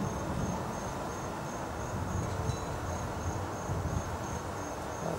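An insect chirping steadily, a high-pitched chirp repeating about two to three times a second, over a low rumble.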